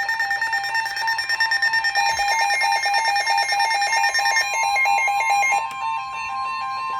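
Electronic weather-alert beeping in a fast alternating two-note pattern, with a steady single warning tone starting about two seconds in, typical of the NOAA Weather Radio 1050 Hz alarm tone that announces a new warning. The beeping stops near the end, leaving the steady tone.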